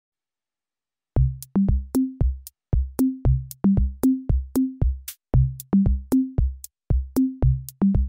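Background music with a steady beat of short low notes, starting about a second in.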